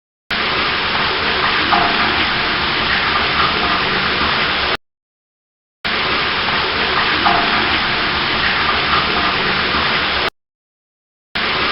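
Waterfall rushing steadily. The same few-second recording starts and cuts off abruptly, with about a second of silence between repeats, and is heard three times.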